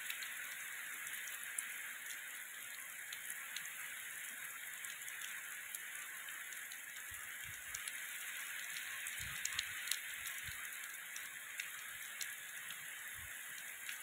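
Heavy wind-driven rain falling steadily: a constant hiss with scattered sharp taps of drops. From about halfway on, short low rumbles of wind gusting on the microphone come in.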